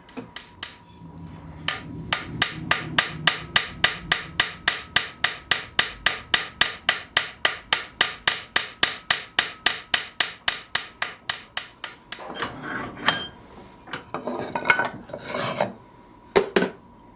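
Rapid, even run of light cross-peen hammer blows on the end of an iron lug, about four or five strikes a second, peening it into a rivet head. The blows stop about twelve seconds in. A few seconds of scraping and handling noise and a single knock near the end follow.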